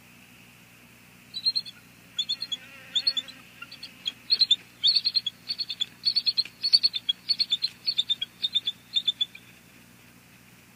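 Bald eagles calling as they mate on the nest: a long string of short, high, chittering notes in quick groups of two to four. It starts about a second in and stops shortly before the end.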